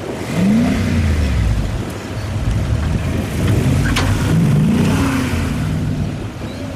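Off-road 4x4 vehicle engine revving up and dropping back twice, over a steady low rumble. There is a single sharp click about four seconds in.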